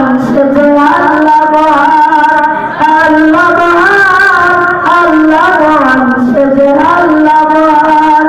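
A boy singing a Bengali song into a microphone, in long held notes that waver in pitch.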